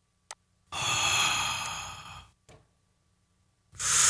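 Mouth-made whoosh sound effect, a blown breath processed with EQ and compression, played back: a small click, then a hissy whoosh of about a second and a half that fades away, and a second whoosh starting near the end.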